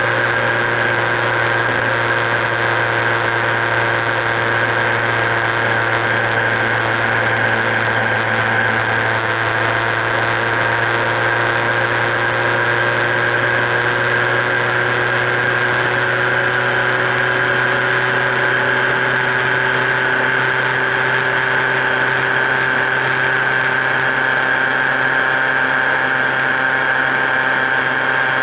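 Motorcycle cruising at steady highway speed: the engine runs at an even pitch, with a steady high-pitched whine over the engine and road noise.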